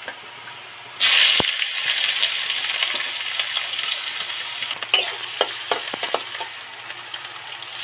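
Chopped onions hit hot oil in a kadai about a second in, setting off a sudden loud sizzle that slowly dies down. A spatula stirs them, with a few scrapes and knocks against the pan.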